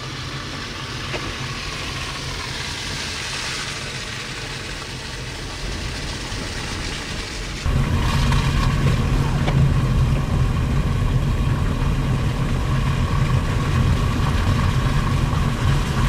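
Steady car engine and road rumble, stepping up suddenly to a louder, deeper rumble about halfway through.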